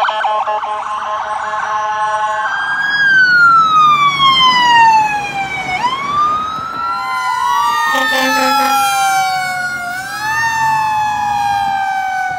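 Emergency-vehicle sirens: fast-pulsing tones at first, then a long wail falling slowly in pitch and sweeping sharply back up, with a second siren overlapping it from about seven seconds in.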